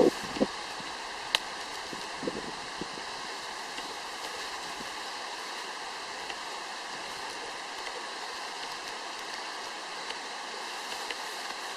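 Steady rush of a mountain stream flowing over a riverbed, with a few light taps in the first few seconds.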